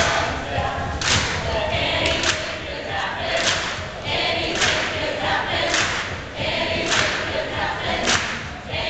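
A large group singing together over music with a strong beat, a sharp hit landing about once a second.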